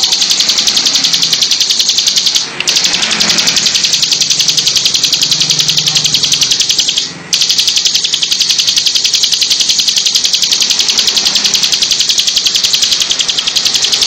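Bar-winged prinia (ciblek) singing a loud, very fast high-pitched trill that runs on almost without a break, pausing briefly twice.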